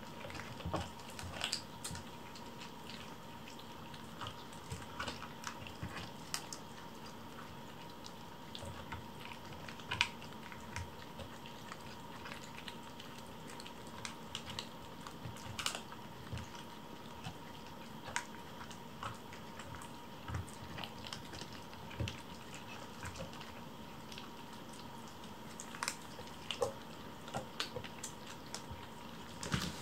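Kittens eating from food bowls: a run of small irregular clicks and smacks from chewing and licking, with a few louder clicks, over a faint steady hum.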